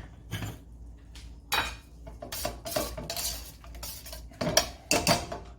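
Metal utensils scraping and clinking against a metal pan in several short, irregular bursts, with a light ringing of the metal.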